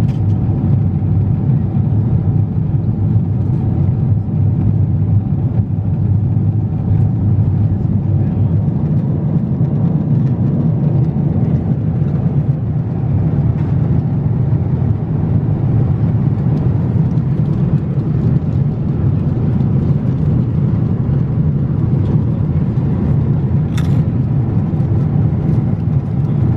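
Steady low drone of a Boeing 777-300ER cabin at cruise, the constant rush of engine and airflow noise heard from an economy seat. There is one brief click near the end.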